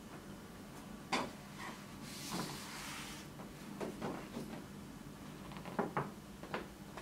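A large card poster being handled and pressed against an aluminium panel: a sharp knock about a second in, a brushing rustle as the card slides over the metal, then several light taps and knocks as it is pushed into place.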